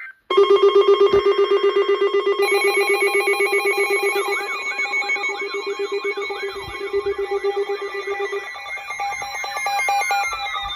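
Several electronic weather-alert alarms sound at once. A rapid pulsing beep is joined by more steady tones, then a warbling siren-like sweep about four seconds in. The beep stops near the end, and falling tones glide down.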